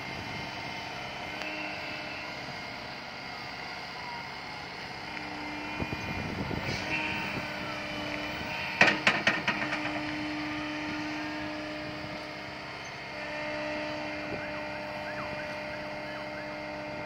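Menzi Muck walking excavator's diesel engine running steadily with a hydraulic hum as it works its legs and boom. About nine seconds in there is a quick clatter of sharp knocks.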